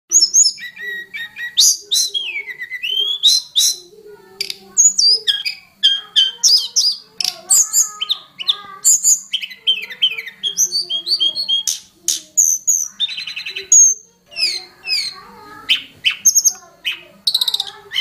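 Hill blue flycatcher (tledekan gunung) singing a fast, varied string of high whistled notes, slurred up- and down-glides and short trills, with brief gaps between phrases.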